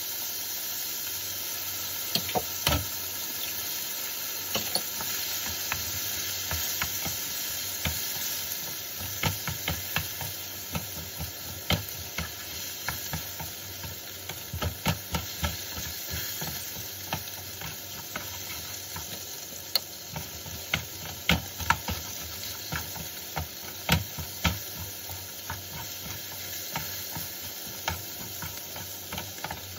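Chopped bitter melon stir-frying in a nonstick frying pan: a steady sizzle with frequent taps and scrapes of a wooden spatula against the pan, coming more often after the first third.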